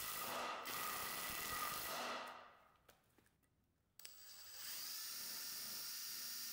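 Makita XDI16 brushless cordless impact driver running steadily while driving a screw into softwood with a PZ2 bit. It stops about two seconds in, and after a short near-silent gap it starts again abruptly about four seconds in and runs steadily.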